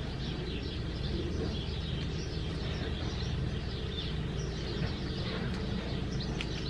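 Small birds chirping and twittering in the background over a steady low rumble of background noise.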